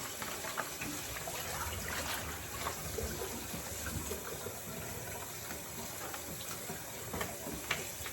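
Kitchen sink faucet running steadily as something is rinsed out under the stream, with a few light knocks and clatters.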